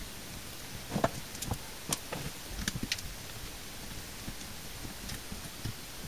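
Small clicks and taps of fingers handling and prying at the grille edge of a portable Bluetooth speaker's plastic and rubber casing, bunched between about one and three seconds in, then only a few faint ticks.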